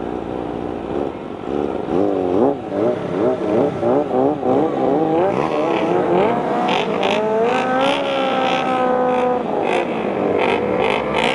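Kawasaki ZX-25R inline-four, bored up to 300 cc, revving hard at high rpm. Its note swings quickly up and down for a few seconds, then climbs steadily under full acceleration, with a drop in pitch at an upshift about eight seconds in before climbing again.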